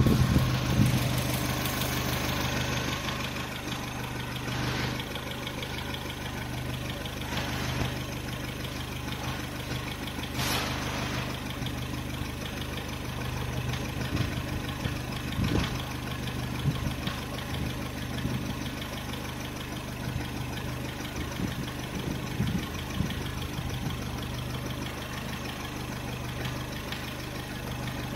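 Renault K7M 1.6-litre eight-valve four-cylinder petrol engine idling steadily, a little louder in the first couple of seconds. There is a single sharp click about ten seconds in.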